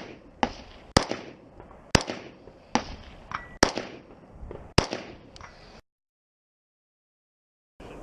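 Rifle fired in a steady timed string, six sharp shots roughly a second apart, each with a ringing tail. The sound then cuts out to dead silence about six seconds in.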